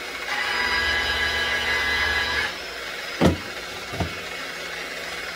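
Power buffer spinning a cotton polishing wheel, its steady whine growing louder for about two seconds while work is held against it, then easing back. A sharp knock comes a little after three seconds, and a smaller one follows a moment later.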